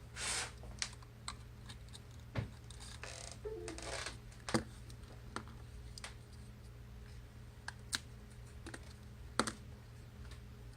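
Scattered small clicks and taps, with a few brief scrapes, from hand tools and parts being handled during an iPhone 6 teardown. A steady low hum runs underneath.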